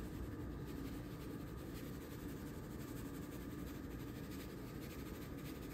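Quiet, steady background noise with a faint steady hum; no distinct sound stands out.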